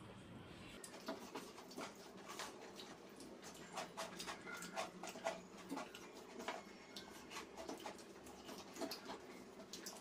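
Eating noises from two people eating rice and curry by hand: chewing and lip smacks, with fingers working rice on the plates, heard as many irregular small clicks and smacks.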